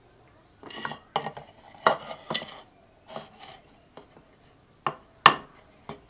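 An upturned rice-filled bowl knocking and clinking against a clay dish as the packed rice is tapped loose and turned out as a mould. It gives a run of knocks and scrapes, then single sharp taps, the loudest a little after five seconds in.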